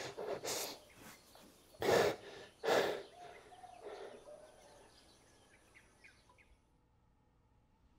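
A few short breathy whooshes in the first three seconds, then faint birds chirping that fade out.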